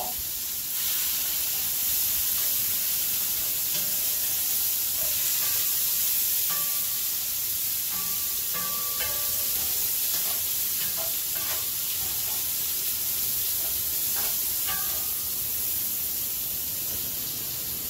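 Asparagus sizzling steadily in a hot cast-iron skillet, with light clicks and scrapes now and then as metal tongs turn the spears.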